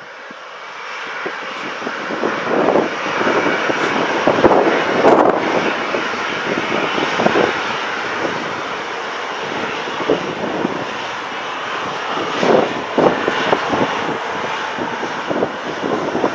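Boeing 737-800's twin CFM56 jet engines running at taxi power as the airliner rolls slowly and turns onto the runway, building up over the first few seconds. Heavy wind buffets the microphone throughout in uneven gusts.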